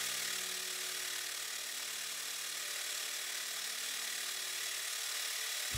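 Metal lathe running while a high-speed steel cutting tool turns down aluminum stock, peeling off long stringy chips: a steady motor hum under an even cutting hiss.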